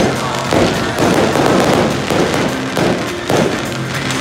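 Fireworks display: a rapid, unbroken run of bangs and crackling from bursting shells and launching comets, one on top of another.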